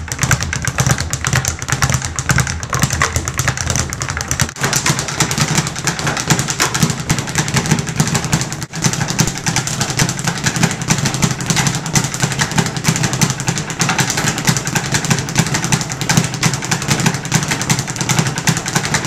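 A speed bag being punched fast and without a break: a continuous rapid rattle of the leather bag striking its rebound board, over a low steady hum.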